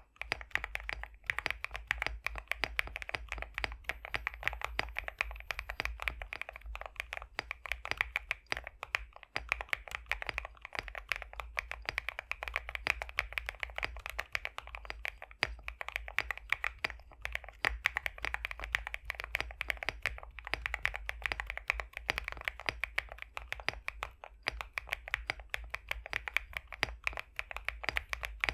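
Continuous fast typing on an Epomaker x Createkeebs High65 v2 65% mechanical keyboard with pre-lubed BSUN X linear switches: a dense, unbroken run of keystroke clicks.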